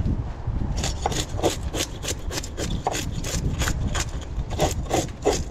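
Metal fish scaler scraping the scales off a porgy in quick, rasping strokes, about three a second.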